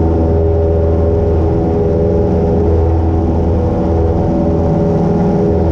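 Cessna 172 Skyhawk's piston engine and propeller running steadily in flight, an even, loud drone with no change in pitch, heard from close behind the propeller.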